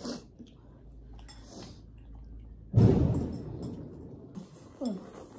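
Eating sounds while noodles are eaten from porcelain bowls with chopsticks: small clicks and wet, liquid sounds. A loud low thump comes about three seconds in.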